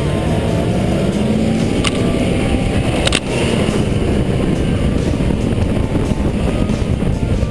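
Pickup truck engine revving hard as it launches, its pitch rising then easing off, over a steady rush of tyres spinning through loose sand. Two sharp clicks about two and three seconds in.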